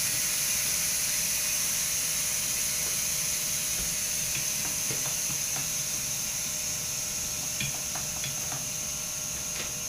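Air hissing steadily out of the tire through the open valve stem with its core removed, slowly fading as the tire deflates. A few light clicks of metal tools sound over it.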